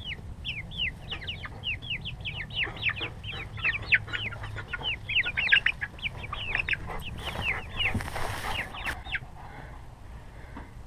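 Young Rhode Island Red chicks peeping in a rapid, overlapping stream of short, high, downward-sliding calls that thins out and stops about nine seconds in. A brief rustling hiss comes about eight seconds in.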